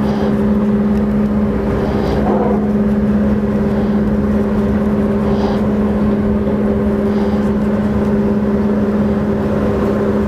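A motor running steadily nearby: a loud, constant hum that holds one pitch and never changes.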